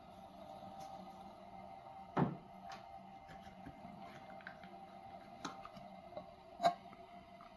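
Pot of water heating on an alcohol stove just short of the boil: scattered faint ticks and clicks, with a louder knock about two seconds in and another near the end, over a steady faint hum.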